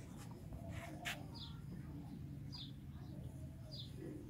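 A bird chirping repeatedly, short high falling chirps about once a second, with one sharp click about a second in.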